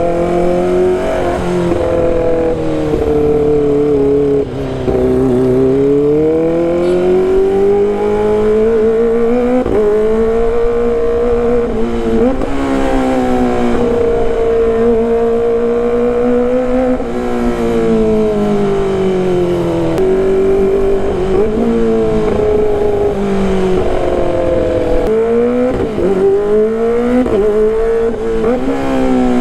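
Kawasaki ZX-25RR's 250 cc inline-four through a loud exhaust, revving high, its engine note climbing and falling again and again with several sudden drops.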